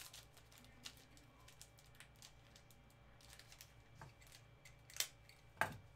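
Faint, scattered clicks and crinkles of sealed trading-card packs and their box being handled in gloved hands, with a sharper knock near the end.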